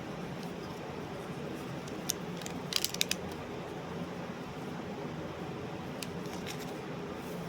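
Steady low hum and hiss with a few light clicks, a small cluster of them about three seconds in.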